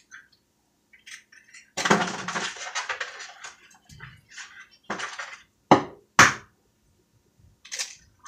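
Cookware and utensils clattering while pancakes are made at the stove: a rattling, scraping stretch about two seconds in, then a few sharp knocks against pans and dishes, the loudest two just past the middle.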